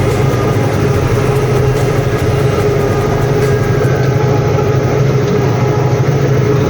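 Tractor diesel engine running steadily under load, heard close up from the open, cabless seat.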